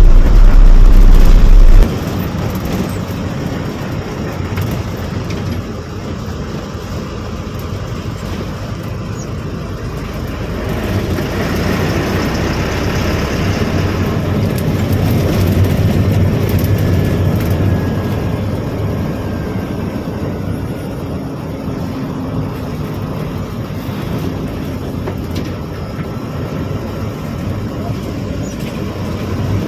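Bus engine and road noise heard from inside the cab while driving, steady with a rise in the middle. A loud deep hum fills the first two seconds and stops suddenly.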